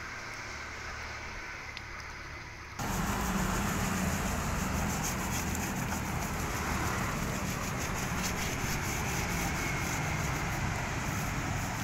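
Scrubbing on the fins of a Mercedes-Benz OH1521 bus radiator, a rough steady hiss with faint repeated strokes, over the low rumble of road traffic. The sound jumps louder about three seconds in.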